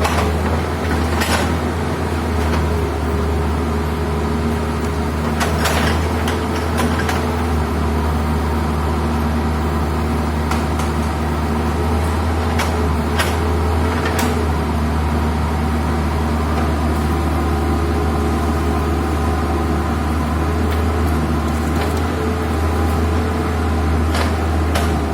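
Excavator's diesel engine running steadily, its pitch shifting slightly as it works. Occasional sharp knocks and clanks are heard over it.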